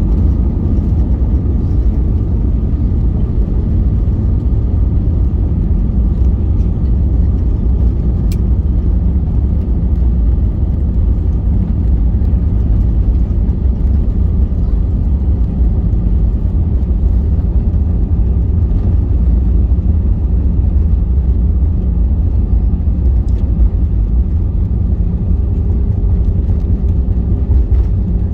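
Steady cabin noise of an Airbus A320-200 with CFM56 engines, heard from a window seat: a loud, even rumble of engines and airflow with a faint steady whine over it. A further steady tone joins near the end.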